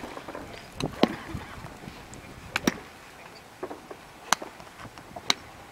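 Golf clubs striking balls at a driving range: several sharp, separate clicks, one of them the boy's driver hitting a teed ball about four seconds in.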